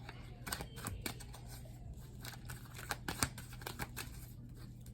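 Tarot cards being handled: scattered soft clicks and light rustles of cards, over a faint steady low hum.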